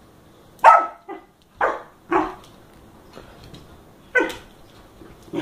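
A puppy barking in play as it wrestles with a cat: about five short, sharp barks, the first the loudest, with a pause of about two seconds before the last ones.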